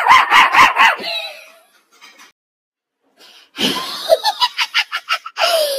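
A high-pitched cartoon voice laughing in quick bursts for about a second. After a short pause, a second stretch of laughter and noisy vocal sound starts past the middle.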